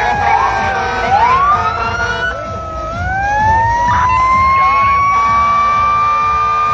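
Fire truck sirens wailing, more than one at once, over the low rumble of engines. One siren's pitch slowly falls and then climbs back up from about three seconds in, while another sweeps quickly upward about a second in.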